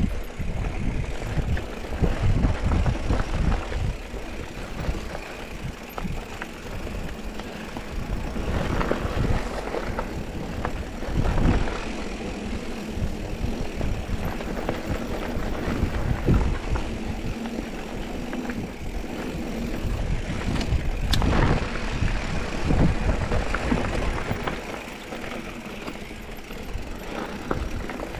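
Mountain bike riding down a dirt trail: continuous tyre and trail rumble with irregular knocks and rattles from bumps.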